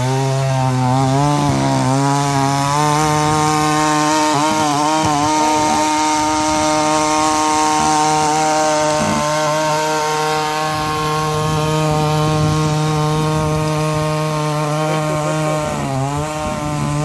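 Small petrol engine of a Neptune NC63 3 HP mini power tiller running at high speed as its tines dig through soil. The engine pitch dips briefly a few times as it takes load, then recovers.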